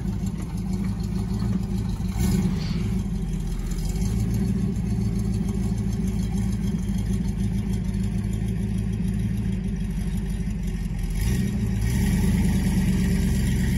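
A big truck's engine running steadily under load as it moves a heavy log. It revs up briefly about two seconds in and picks up again near the end.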